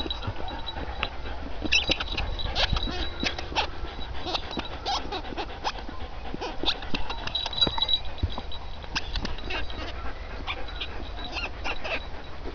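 Rubber squeaky dog toys squeaking in many short, irregular squeaks as two puppies bite and chew on them.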